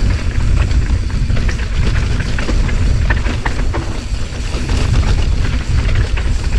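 Wind buffeting the camera microphone as a mountain bike descends fast, with the bike rattling and the tyres clattering over rough dirt.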